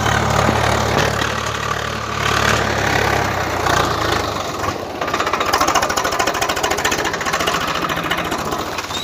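Tractor engine running under load as it pulls a seed drill through tilled soil. About halfway through, a fast, even clattering takes over, heard close up.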